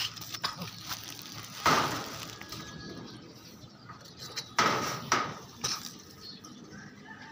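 Mango tree leaves and twigs rustling and snapping in four short bursts, one about two seconds in and three close together about five seconds in, as a pole-mounted net mango picker is pushed through the branches.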